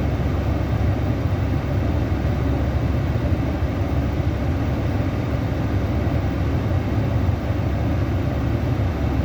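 Steady low rumble of a vehicle, engine and road noise, swelling just before and holding level throughout.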